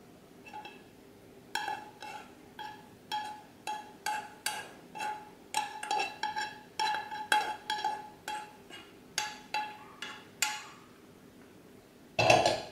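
A frying pan being scraped and knocked to empty fried onion and tomato into a ceramic baking dish: repeated sharp taps with a short ringing tone, about two a second, then one louder knock near the end.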